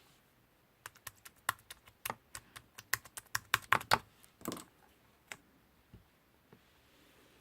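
A quick run of sharp clicks and taps, starting about a second in and densest around the middle, then thinning out to a few single clicks.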